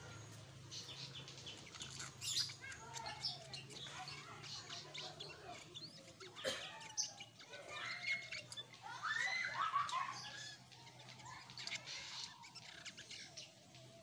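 Caged kutilang sutra bulbul singing a run of varied chirps and short whistled phrases, with the loudest burst of warbling notes about two-thirds of the way in.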